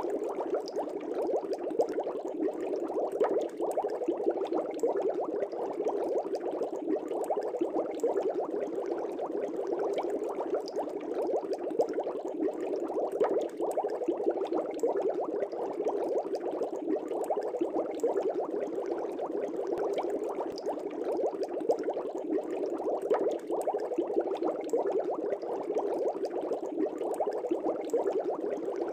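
Air bubbles streaming up through fish-tank water: a steady, dense bubbling with many small pops and no pause.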